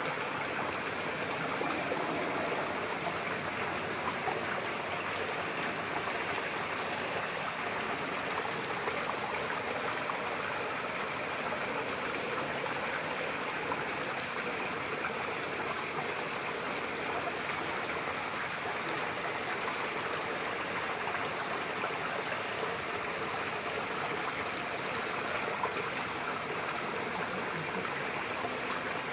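Steady rush of running water, like a stream or waterfall, unchanging throughout, with faint high ticks repeating about once a second.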